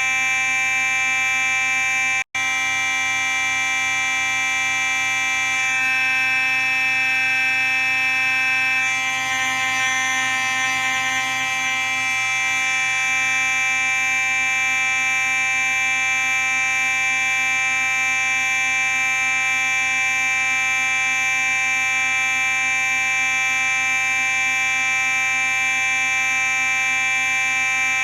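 Simplex 4903-9838 fire alarm sounding a continuous steady tone, with a split-second break about two seconds in.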